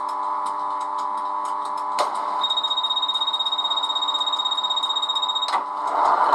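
Model-railway DCC sound decoder playing a guard's despatch whistle over the Class 91 electric locomotive's steady stationary hum: after a click about two seconds in comes one long trilling whistle of about three seconds, which stops abruptly with another click.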